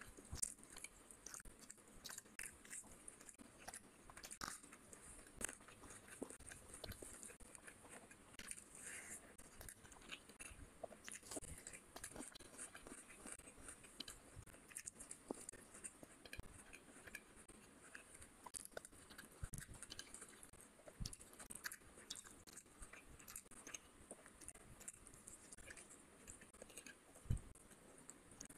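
Quiet, close-miked chewing and biting of a person eating rice and fish curry by hand: many small wet mouth clicks and occasional crunches, with one louder knock near the end.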